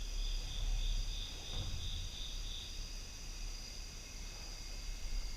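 Crickets chirping, a pulsed high chirp for the first few seconds over steady high-pitched insect trilling, with a low steady electrical hum underneath.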